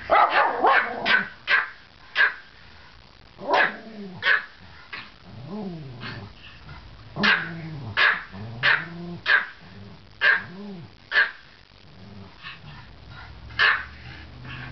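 Two Pomeranians barking at each other: a fast run of sharp, high barks in the first two seconds, then single barks spaced out by short pauses. Low growls that rise and fall in pitch come between the barks in the middle.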